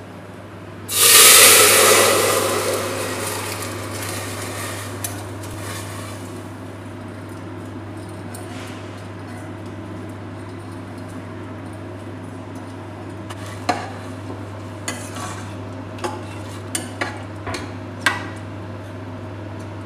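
Soaked rice tipped into hot ghee and spices in a stainless-steel pressure cooker, sizzling loudly about a second in and dying down over several seconds. Near the end a metal ladle clinks against the cooker as the rice is stirred, over a steady low hum.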